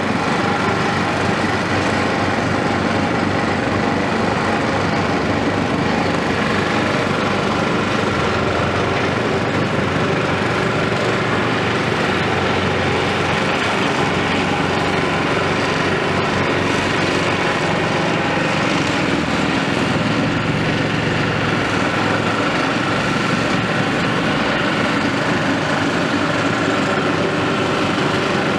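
Caterpillar 329E tracked hydraulic excavator running steadily while it works, moving sand with its arm and bucket.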